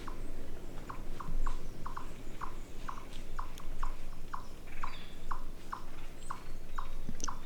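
A small animal calling in a steady series of short, falling chirps, about two a second.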